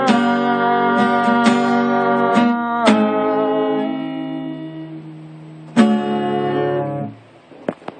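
Acoustic guitar strummed, closing a song: several chord strums in the first three seconds, the chord left to ring and fade, then one last chord struck about six seconds in and damped a second later. A few faint clicks near the end.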